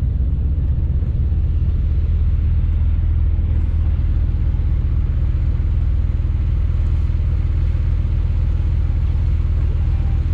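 A car engine idling steadily close by: a constant low rumble that does not rise or fall.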